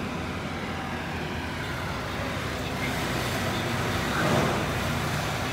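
Steady road-traffic noise that swells to a peak about four seconds in, as a vehicle passes.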